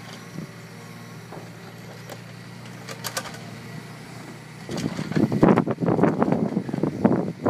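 Hyundai R220LC-9A long-reach excavator's six-cylinder diesel engine running steadily. From about five seconds in, a louder, uneven noise comes in as the bucket digs into wet soil and the machine works under load.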